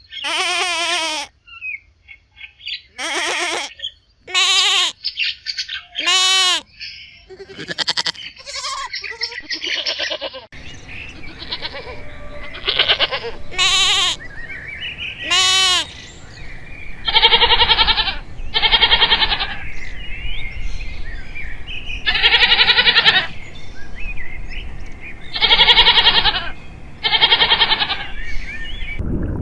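A series of loud animal calls, each about a second long with a quavering pitch, repeated with short pauses. About a third of the way in, a steady low background noise comes in under more calls of the same kind.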